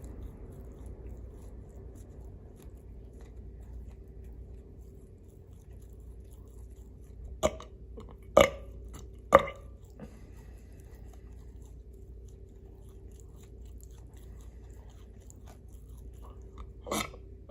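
Someone chewing pizza, with faint wet mouth ticks, then three loud sharp mouth sounds about a second apart midway through and one more near the end.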